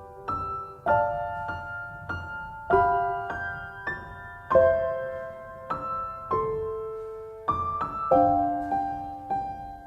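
Slow piano music: single notes and chords struck every half second or so, each left to ring and die away.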